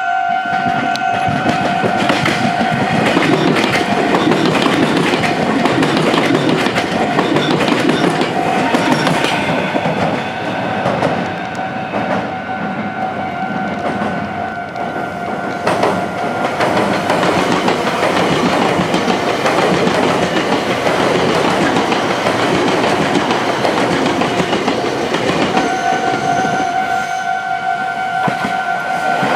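A Meitetsu train passing close by, its wheels clacking over rail joints and junction points. A level crossing's electronic warning bell rings steadily over it, plainest at the start and again from near the end.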